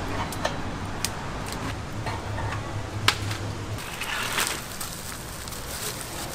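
Metal meat hooks clinking against the rim of a clay jar oven, with two sharp clicks over a low steady hum. A little under four seconds in, a plastic bag rustles and wet marinated chicken squishes as more pieces are hooked out of it.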